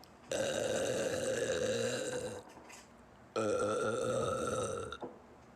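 A woman's two long burps, each held at a fairly steady pitch: the first lasts about two seconds, and the second comes after a short pause about halfway through and lasts about a second and a half.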